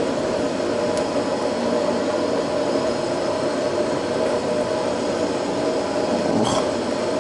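A steady, even roar, with a faint click about a second in and a short clatter about six and a half seconds in as food is handled on the counter.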